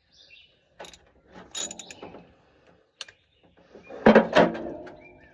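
A socket wrench and spark-plug socket clicking and clinking metal on metal while a spark plug is worked out of the engine, with a louder metallic clank about four seconds in that rings on briefly.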